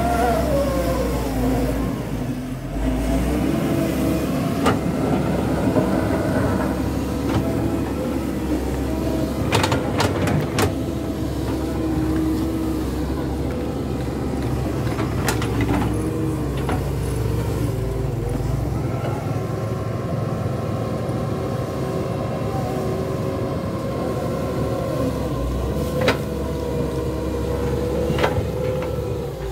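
Doosan DX140W wheeled excavator's diesel engine running steadily as the machine drives and works its arm, the engine pitch dropping in the first couple of seconds. A few sharp knocks come from the bucket and arm striking the dirt.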